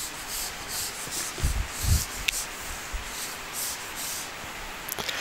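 Whiteboard eraser rubbing back and forth across a whiteboard in repeated dry strokes, about two or three a second, wiping the board clean. A couple of soft low thumps come about a second and a half and two seconds in.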